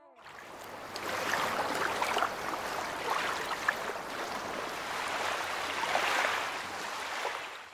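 Water lapping and splashing gently, like small waves against a boat's hull, with scattered little splashes; it fades in just after the start and fades out at the end.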